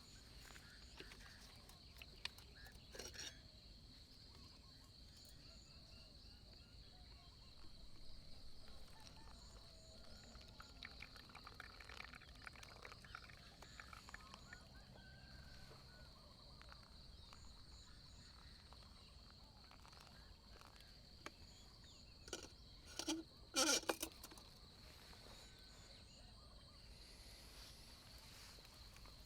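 Quiet outdoor ambience with a steady high-pitched insect drone. Scattered faint clicks and knocks run through it, the loudest a quick cluster of sharp knocks about 23 to 24 seconds in.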